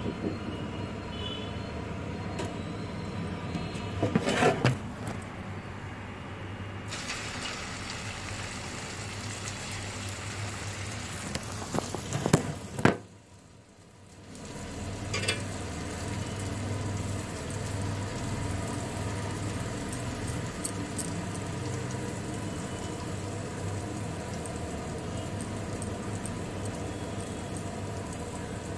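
Stainless steel spoon and vada maker clinking and scraping against a steel bowl of vada batter a few times, over a steady background hum. The background drops out for about a second just after one of the clatters.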